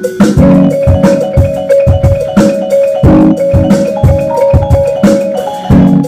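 Electronic keyboard music over a steady drum beat: a single high note is held for about five seconds over repeated low chords.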